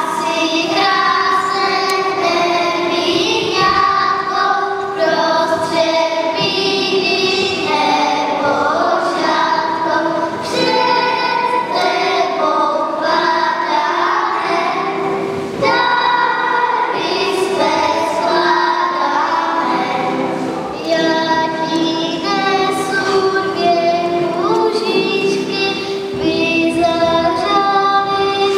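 A children's choir singing a Christmas song.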